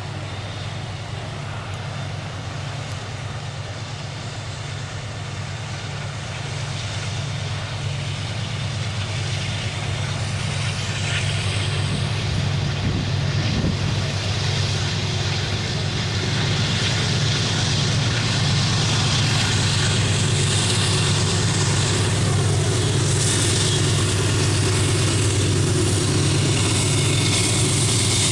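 Pair of GE AC44i diesel-electric locomotives working hard up a grade, a low steady engine drone that grows gradually louder as they approach.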